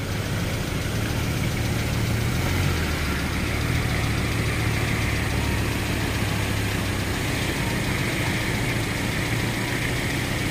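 A four-wheel-drive vehicle's engine idling steadily at an even, low pitch.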